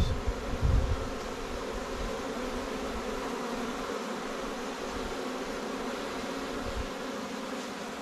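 Honey bees buzzing steadily around a hive entrance, workers fanning at the entrance, which the beekeeper takes as a sign that the swarm's queen is inside the hive.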